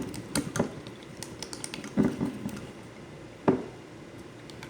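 A spoon stirring a sauce in a bowl, clicking and tapping irregularly against its sides, with two louder knocks about two seconds in and again a second and a half later.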